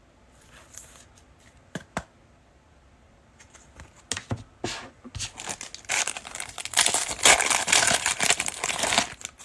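A trading-card pack wrapper being torn open and crinkled: a couple of sharp clicks about two seconds in, then crinkling and tearing that builds and turns dense over the last few seconds before stopping.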